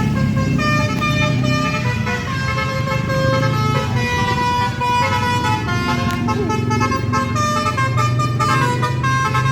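Basuri telolet multi-tone horn playing a tune, its several horn trumpets sounding held notes that step from pitch to pitch, over a steady low engine hum.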